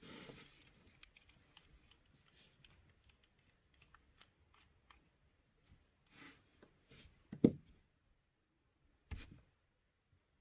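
Small clicks and taps of metal and plastic parts being handled as the hop-up chamber of a Silverback SRS airsoft rifle is taken apart, with a louder knock about seven and a half seconds in and another near nine seconds.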